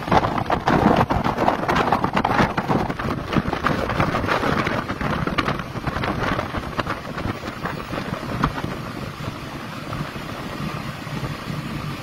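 Whirlwind gusts blowing hard over a phone's microphone, a loud rushing buffet full of crackles and rattles, easing somewhat after about eight seconds.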